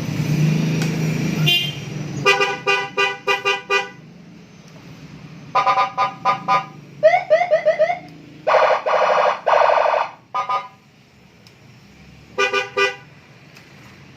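Police-escort electronic siren and horn kit on a Yamaha NMAX scooter, run through its patterns. It gives a quick string of about five short blasts, then four more, then a fast warbling yelp and two longer held tones, and near the end a last burst of three short blasts.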